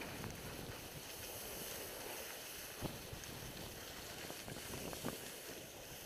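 Wind rushing over the microphone of a moving skier, with the skis sliding over hard-packed snow. A couple of faint ticks come about three and five seconds in.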